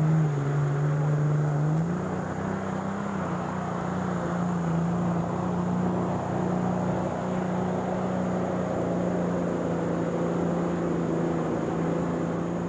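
Turbocharged diesel engine of a John Deere pulling tractor running flat out under load as it drags the sled. The engine note sags in the first couple of seconds, climbs back up, then holds steady.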